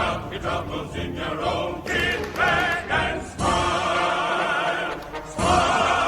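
Music with choral, operatic-style singing: held notes with vibrato, in phrases that break off and start again every second or two.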